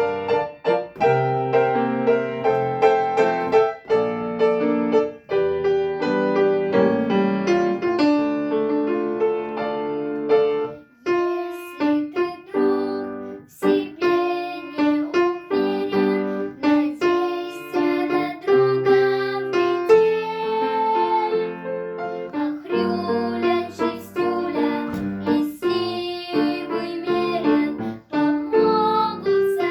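Music: a song played on piano or electric keyboard, moving through a run of notes and chords.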